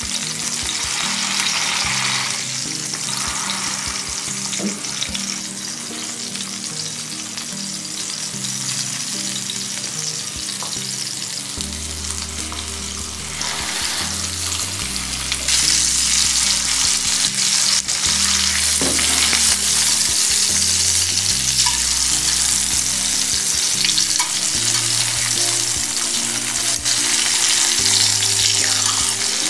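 Bitter gourd halves sizzling in oil on an iron tawa, with a steel spatula pressing and turning them and scraping the pan now and then. The sizzle grows louder about halfway through.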